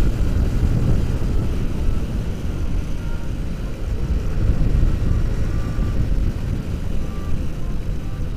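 Motorcycle riding at speed, its wind rush buffeting the microphone over the engine and the hiss of tyres on a wet road.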